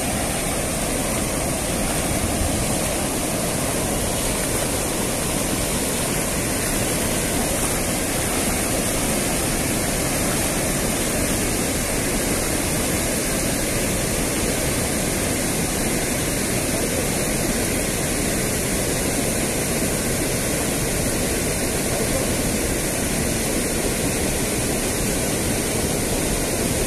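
Water pouring over a concrete river weir: a steady, even rush of cascading water.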